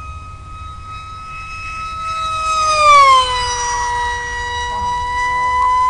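Electric FPV plane's motor and propeller giving a steady high whine that grows louder, then drops in pitch about three seconds in as the plane flies past.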